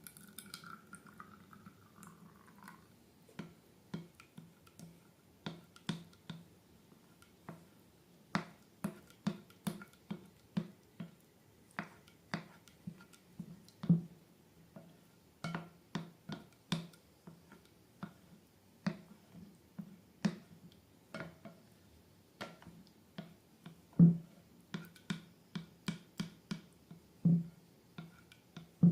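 Slime being squeezed and kneaded by hand, making a run of sharp, irregular wet clicks and pops.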